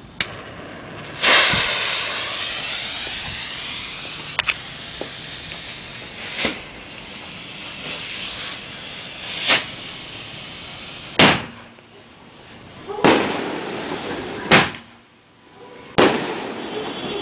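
60-gram aerial canister shells going off, a series of about seven sharp booms from launches and bursts. The first, loudest bang about a second in is followed by a long fading hiss and crackle.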